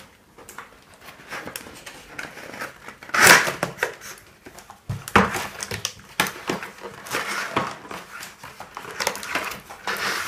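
Cardboard box and packaging insert rustling, scraping and crinkling in irregular bursts as a toy tablet is pulled out of its box, loudest about three seconds in.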